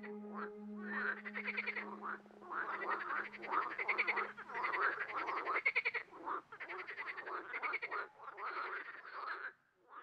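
Frogs croaking in a chorus, a rapid rattling calling in bouts of about a second with short gaps. A low steady tone runs under it and stops about halfway through.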